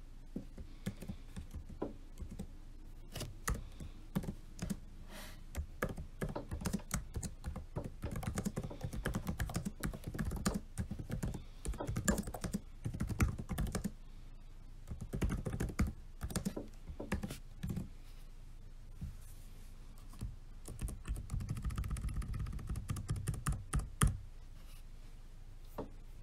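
Typing on a laptop keyboard: fast runs of key clicks in bursts, separated by short pauses with a few single clicks.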